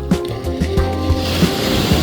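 Background music with a steady beat; a hiss swells in about a second in and carries on alongside it.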